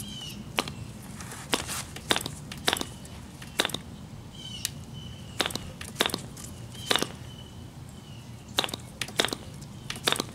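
Propeller of a primed MK-17 model diesel (compression-ignition) engine being flicked over by hand, a sharp snap with each flip, about a dozen flips spaced irregularly from half a second to a couple of seconds apart; the engine does not catch and run.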